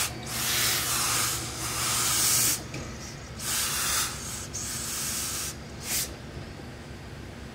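Hose-fed steam iron hissing as it blasts steam into trousers during pressing, in bursts: a long one of about two and a half seconds, two shorter ones, then a brief puff about six seconds in.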